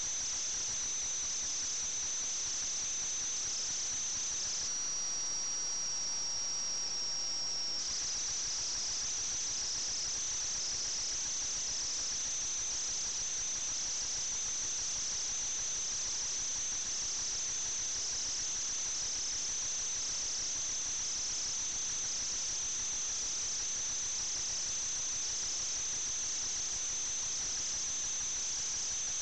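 Steady high-pitched whine over a hiss, pulsing in a regular beat about once a second. It drops slightly lower and falls for a few seconds about five seconds in.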